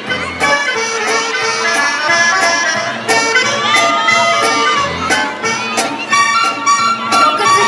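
Background music with a steady beat played over loudspeakers.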